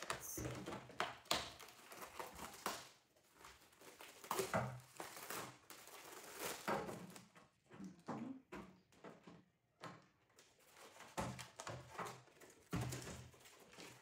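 Unpacking and handling a plastic lazy Susan turntable organizer: intermittent rustling of packaging with light clicks and knocks of the plastic parts, in scattered bursts with short pauses.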